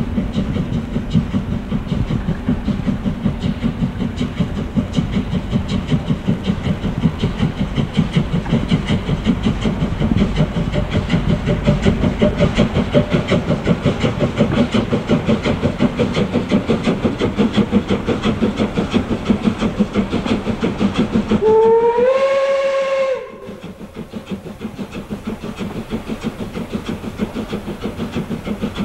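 DB class 23 two-cylinder steam locomotive 23 105 working a passenger train, its exhaust beating in a fast, steady rhythm. About three-quarters of the way through, its steam whistle sounds for about a second and a half, rising slightly in pitch and then holding before cutting off abruptly, after which the exhaust beats go on a little quieter.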